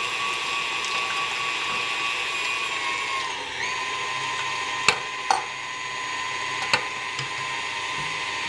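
KitchenAid Ultra Power stand mixer running steadily with a motor whine, creaming cream cheese in its steel bowl; the whine drops slightly in pitch about three seconds in. Three sharp clicks sound between about five and seven seconds in.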